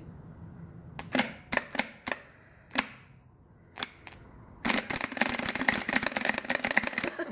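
Ratchet wrench clicking: several separate clicks in the first four seconds, then a fast continuous run of ratcheting for the last two and a half seconds.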